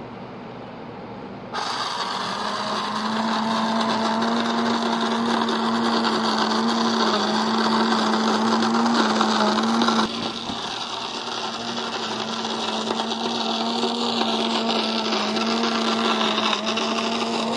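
Cuisinart electric burr coffee grinder switched on about a second and a half in, its motor grinding a load of freshly roasted coffee beans with a steady hum. About ten seconds in the sound drops a little and grows thinner.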